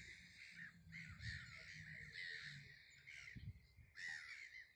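A flock of gulls calling in flight, many short harsh calls overlapping, faint. There is a low rumble underneath.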